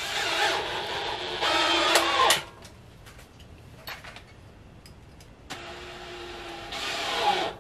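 Cordless drill running in two bursts of about two seconds each, drilling pilot holes into the wooden sewing-table top. In the first burst its pitch rises and falls; the second is steadier, rising near its end. A few small clicks come between the bursts.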